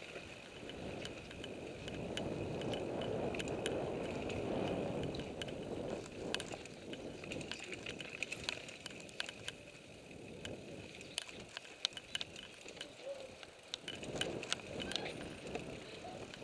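Mountain bike riding down a dirt trail: tyres rumbling over the ground, rising and falling with speed, while the bike's frame and chain rattle and click sharply over bumps.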